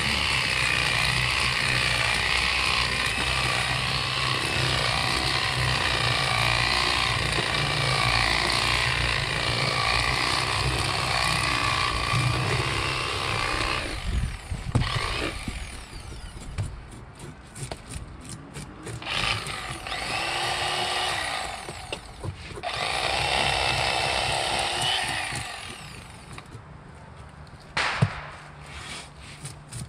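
Electric fillet knife running as it cuts into a fish: a steady motor buzz for about fourteen seconds, then two shorter runs of a couple of seconds each, with small knocks and clicks between.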